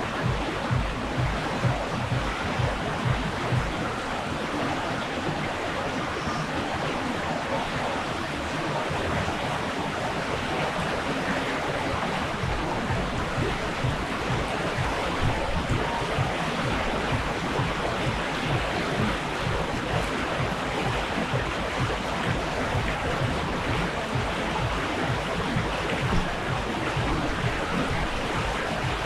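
Steady rush of water running down a water slide flume, with irregular low rumbling of wind or handling on the microphone.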